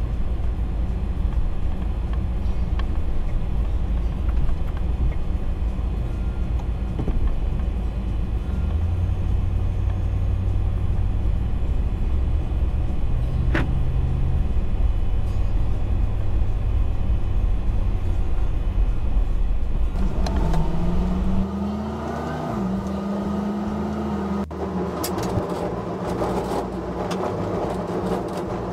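Pickup truck driving off, heard from inside: a steady low engine and road rumble, the engine note stepping up about eight seconds in as it gets under way. About twenty seconds in the sound thins and changes, with a gliding hum and scattered clicks and knocks.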